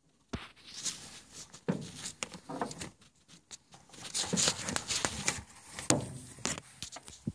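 Handling noise on a phone's microphone: irregular rustling, rubbing and sharp knocks as the phone is moved about and handled. It starts a moment in, and the loudest swells come near the middle and near the end.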